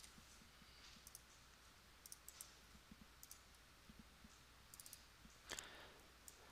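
Near silence with a few faint, scattered computer-mouse clicks, several close together about two seconds in and one slightly louder near the end.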